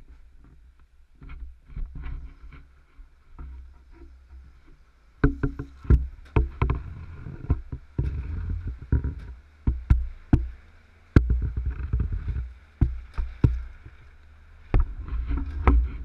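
Black plastic tarp crackling and rustling in irregular bursts as it is handled and pulled over the front of the truck, close to the microphone, over a low steady rumble.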